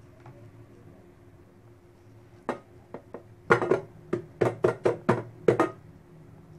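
A metal cake pan turned upside down on a plate and knocked about a dozen times in quick, uneven succession to release a steamed dhokla. The knocks start about two and a half seconds in and stop a little before the end.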